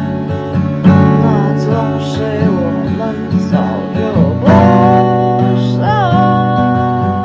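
Acoustic guitar strummed in chords, with a voice singing along and holding a long note about halfway through.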